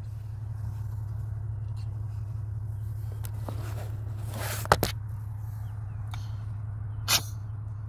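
Diesel truck engine idling, a steady low hum heard inside the cab, with a few short sharp noises over it, the loudest about halfway through.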